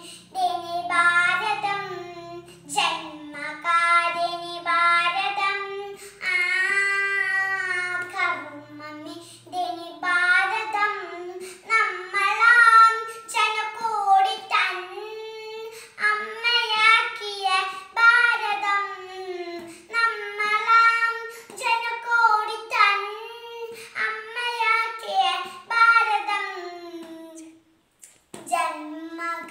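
A young girl singing solo without accompaniment, one voice holding long notes. She breaks briefly for breath near the end before carrying on.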